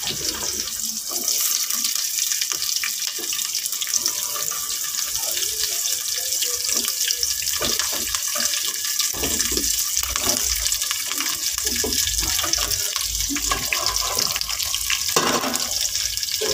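Drumstick pieces and other cut vegetables sizzling in hot oil in a large pot, a steady high hiss, with scattered knocks and rustles as onions, carrot, chillies and greens are tipped in and settle.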